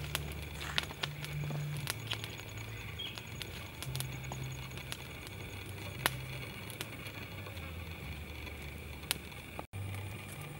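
Small fire of dry twigs and leaves crackling, with sharp pops at irregular intervals.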